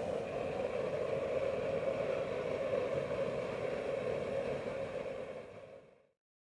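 Homemade waste-oil stove, burning waste cooking oil and machine oil, running with a steady rushing noise under a pot at the boil. It fades out to silence near the end.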